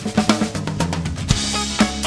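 Live band playing: a drum kit beats out a quick pattern of kick, snare and rimshot strokes over an electric bass line, with a cymbal crash about two-thirds of the way in.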